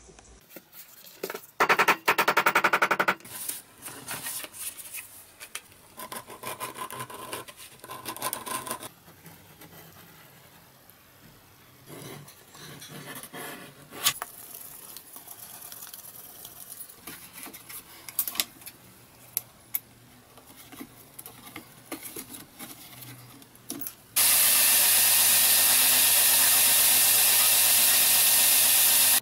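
Leatherwork by hand: scraping and rubbing passages with sharp clicks and taps. For the last five seconds a belt grinder runs steady and loud, a leather sheath piece pressed against its sanding belt.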